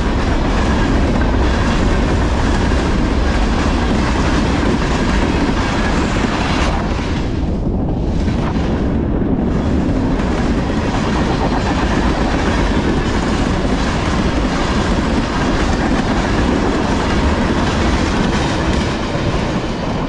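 Freight train of covered hoppers and tank cars rolling past close by: steady, loud wheel-on-rail noise with a clickety-clack over the rail joints, easing a little near the end as the last cars pass.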